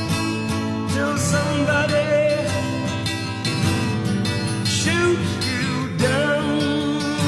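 Background music: a song with guitar accompaniment and a singing voice.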